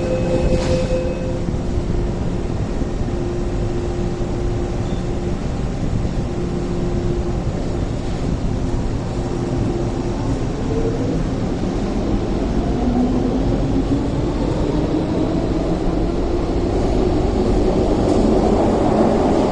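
MTR Tseung Kwan O line electric train pulling out of the station and accelerating. A steady hum from the standing train gives way, about halfway through, to a whine that climbs in pitch as the train gathers speed, over a constant low rumble of the running train.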